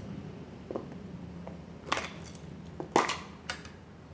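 Four sharp metallic clicks and scrapes as the lid of a small metal tin is pried open with a tool, the loudest about three seconds in.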